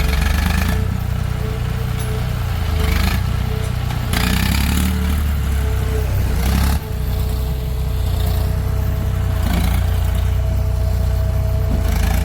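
Diesel engine of a JCB 3DX backhoe loader running steadily at working speed, with several short bursts of rushing, scraping noise over the engine, at about 3, 4 and 9 seconds in.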